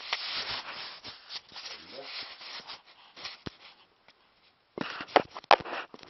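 Handling noise: a camera microphone rubbing and scraping against clothing as it is carried, then a few sharp knocks near the end as it is bumped and set down.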